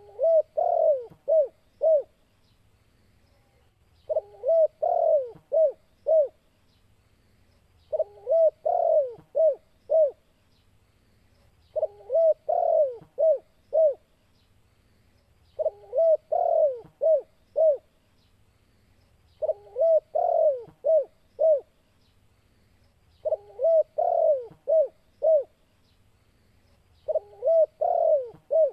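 Male spotted dove in breeding condition singing its territorial coo. It repeats the same phrase about every four seconds: a quick cluster of notes, then a few separate clipped coos.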